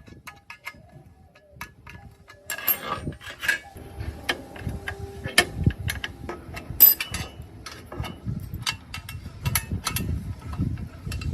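Irregular metallic clicks, clinks and knocks of metal parts being handled and worked, sparse at first and busier and louder from about two and a half seconds in.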